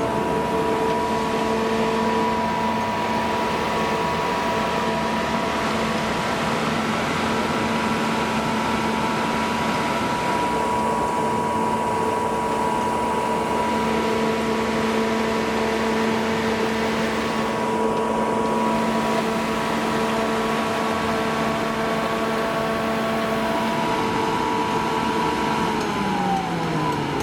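Ford V8 engine of a Kohler 100 kW natural-gas generator set running at a steady governed speed. Near the end it is shut off, and its pitch falls as it winds down.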